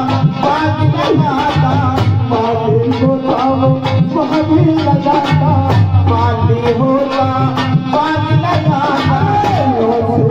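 Live Indian folk devotional music played through a PA: harmonium melody over a steady dholak hand-drum beat, with a jingling rhythm on top.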